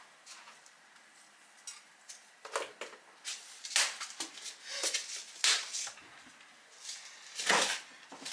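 Kitchen utensils and pans clattering and scraping in short strokes, about six of them, starting a couple of seconds in, the loudest near the end.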